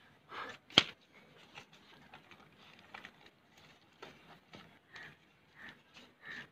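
A sheet of paper rustling and crinkling as it is folded and pressed flat on a wooden tabletop, with one sharp slap about a second in and scattered small taps and crinkles after.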